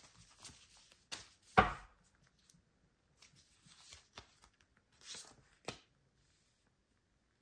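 Tarot cards being handled: the deck is shuffled and a card drawn and laid down on the table, in short swishes and clicks. A single sharp knock about one and a half seconds in is the loudest sound.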